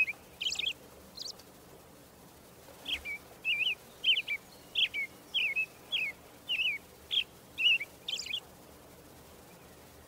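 Small bird chirping short, sliding notes. It breaks off for about a second and a half after the first second, then calls about twice a second until about eight seconds in.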